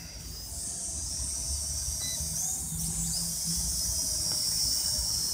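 Small toy quadcopter drone in flight, its propellers giving a steady high-pitched whine that briefly rises in pitch about two and a half seconds in, over a low rumble.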